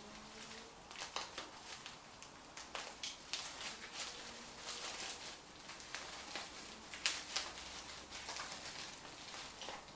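Packaging rustling and crinkling in irregular bursts as small parts are unwrapped by hand.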